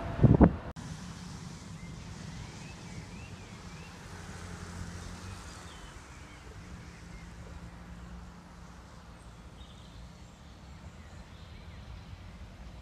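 Outdoor ambience: a steady low rumble with birds chirping faintly a few seconds in. It opens with a short burst of wind buffeting the microphone, the loudest sound here, which cuts off abruptly.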